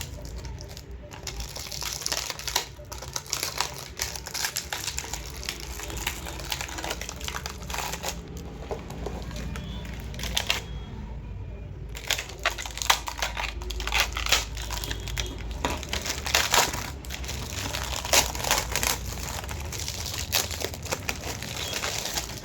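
Packaging crinkling and rustling as it is handled and opened, with many small irregular clicks and crackles.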